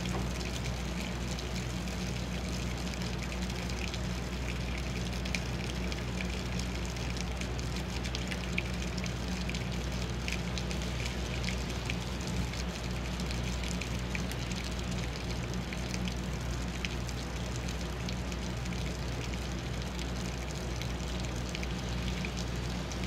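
Heavy rain falling steadily, with many small drop ticks against the window glass, over a steady low hum.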